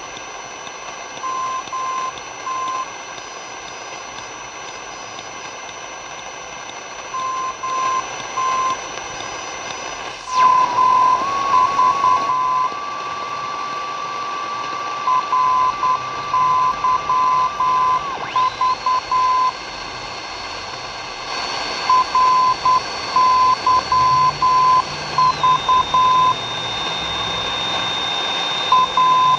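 Longwave radio beacons picked up on a Zenith Trans-Oceanic radio: a beeping tone keyed in short Morse code groups, the beacon's identifier repeating every few seconds over steady static hiss and a faint high whistle. About ten seconds in the tuning shifts with a brief sweep, and a steady tone sounds under the keyed groups.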